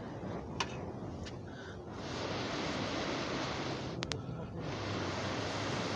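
Air blown hard through a fire-blowing pipe onto a fire: two long, rushing hisses of about two seconds each, a short gap between them, with a couple of sharp clicks.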